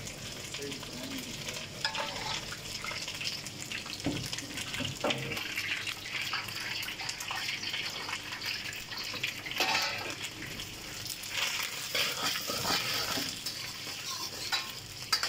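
Battered chicken pieces sizzling steadily in hot oil in an iron wok. A metal slotted skimmer scoops them out and tips them into a second wok, with a few short clinks and scrapes of metal on the pan.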